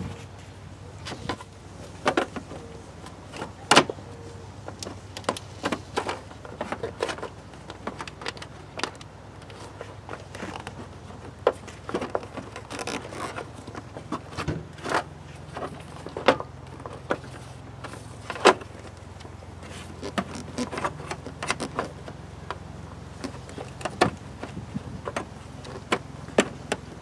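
Plastic and rubber intake parts being handled and pressed into place on the air filter housing: scattered clicks, taps and rubbing of the ribbed rubber boot and plastic duct, over a low steady hum.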